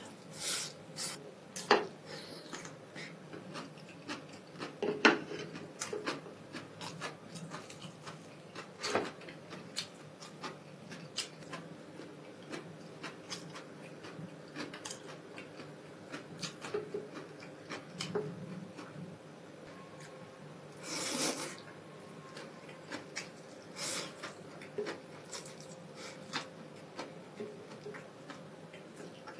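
Close-miked eating sounds: a man slurping and chewing instant noodles, with many scattered wet clicks and short slurps and one longer slurp about 21 seconds in.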